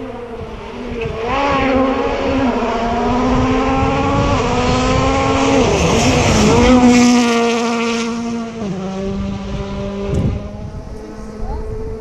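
Rally car approaching flat out and passing, its engine note climbing and stepping with gear changes, loudest about six to seven seconds in, then dropping in pitch and fading away.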